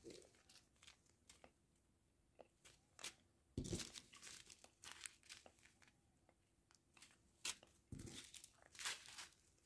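Faint, irregular crinkling of a small clear plastic zip bag of diamond-painting resin drills being handled, louder for a moment about four seconds in and again near the end.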